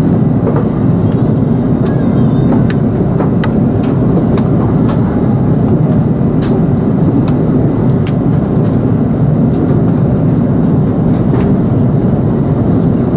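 Steady cabin noise of an Airbus A340-300 in descent: the even rush of airflow and engines heard through the fuselage, with faint scattered clicks.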